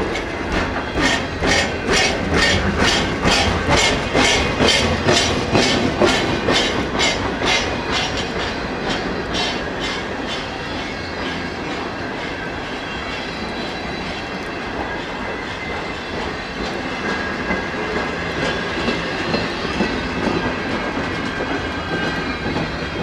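Double-stack intermodal well cars rolling slowly past on jointed track, their wheels clicking over the rail joints about twice a second. The clicking fades after about ten seconds into a steady rumble of wheels on rail.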